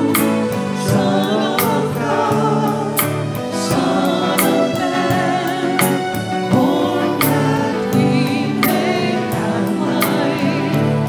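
A group of voices singing a hymn or gospel-style worship song with instrumental accompaniment and a steady beat.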